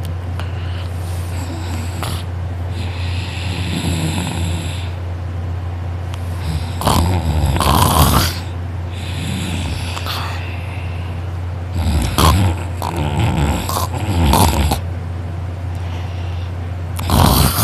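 A person snoring hard in deep sleep: loud, rasping snores every few seconds, with softer breathing between them.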